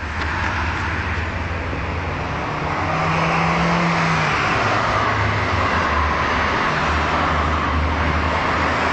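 Vespa PX 200's single-cylinder two-stroke engine running steadily through its stock exhaust, getting a little louder about two and a half seconds in.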